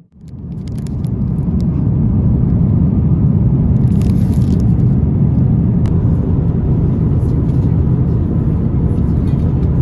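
Steady low rumble of an Airbus A350-1000 airliner's engines and airflow heard inside the passenger cabin, fading in over the first couple of seconds and then holding level.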